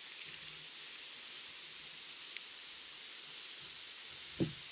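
Steady background hiss with faint handling noise, a small tick about halfway, and one short low thump that drops in pitch near the end.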